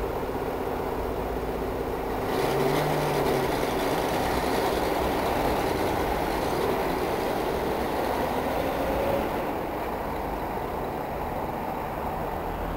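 Steady mechanical rumble with noise, of the kind a vehicle makes. It swells louder and brighter about two seconds in and eases back after about nine and a half seconds.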